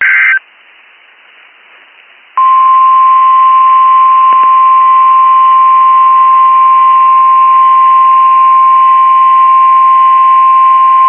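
A short burst of higher tones cuts off, then after a gap of about two seconds the NOAA Weather Radio warning alarm tone sounds: a single steady tone of about 1050 Hz, held for about nine seconds. It announces a severe thunderstorm warning.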